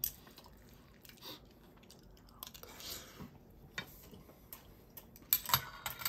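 Metal spoon clinking and scraping against a stainless steel bowl while scooping fried rice: soft scattered clicks, then a quick run of louder, ringing clinks near the end.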